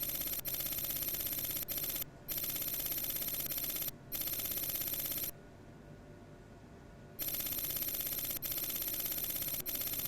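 A fast, buzzing rattle that runs steadily, breaks off briefly twice, drops to a faint hum for about two seconds in the middle, then starts again.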